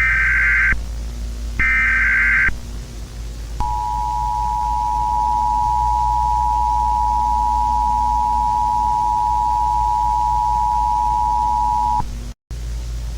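Emergency Alert System signal: two short bursts of warbling SAME header data, then the two-tone EAS attention signal, a steady dual tone held for about eight seconds before it cuts off. A steady low hum runs underneath.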